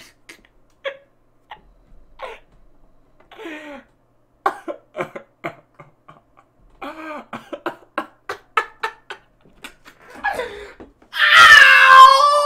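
A man laughing hard in runs of short, breathy bursts with pauses between them. Near the end a loud, drawn-out yell comes in, falling steadily in pitch.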